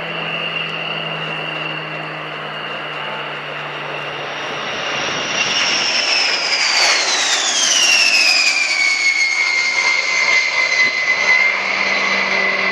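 Military cargo plane's engines whining over a steady rush as it passes, the whine sliding down in pitch and the sound growing loudest about eight seconds in.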